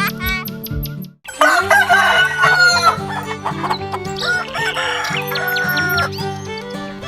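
A rooster crowing about a second in, followed by chicken clucking, over background music.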